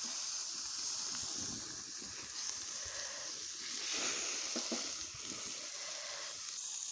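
Porterhouse steaks sizzling on a grill over a fire: a steady hiss.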